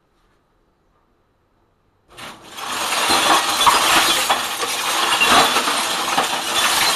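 Cement mixer starting up about two seconds in, its drum tumbling a load of glass bottles, jars and scrap electronics that crash, clatter and shatter against each other and the drum without a break.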